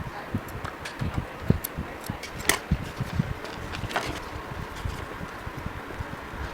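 Irregular knocks and low thuds with scattered sharp clicks, the loudest two about two and a half and four seconds in.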